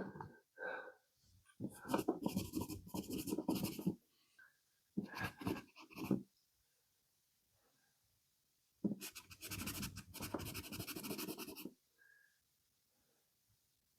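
Three bouts of rapid, scratchy scrubbing against an old rusty pipe wrench, each a couple of seconds long, with short pauses between them.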